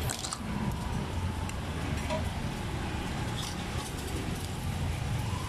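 Steady rumble of street traffic, with a few light clicks from a metal ladle against the steel pot and plastic cups.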